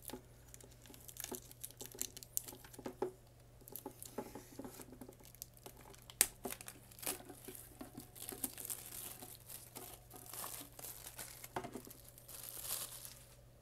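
Clear plastic shrink-wrap being picked at and peeled off a metal collector's tin, with irregular crinkling and small tearing crackles. The crinkling gets denser near the end.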